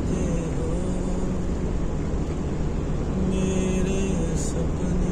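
Steady road noise inside a moving car on a wet highway, with a few held, gently wavering notes of a song over it, briefly about a second in and again three to four seconds in.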